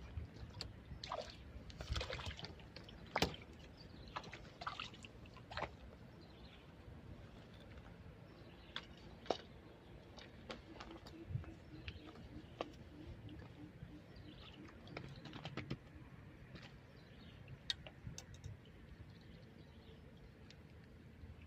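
Faint sloshing and splashing of water, with scattered small clicks and taps, more of them in the first few seconds.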